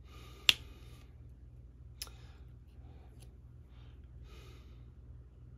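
Small sharp clicks from placing diamond-painting drills with a drill pen: one loud click about half a second in and a fainter one about two seconds in, with soft scratchy rustles between.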